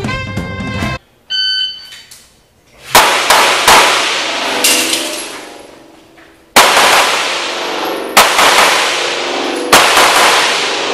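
A shot timer's start beep, then a string of handgun shots: three in quick succession about three seconds in, then single shots every second or two. Each shot rings on with a long echo off the concrete-block walls of the indoor range.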